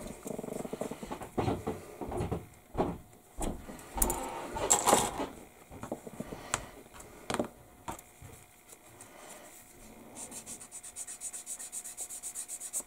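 Plastic model-kit sprue clicking and rattling as it is handled and a part is worked free. From about two-thirds of the way in, rapid even back-and-forth strokes of a small plastic part being filed on a metal hobby file.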